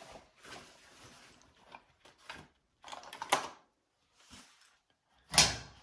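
Scattered clicks and scrapes of hands and tools working at a clothes dryer's cabinet to free its top panel, with a sharp knock near the end.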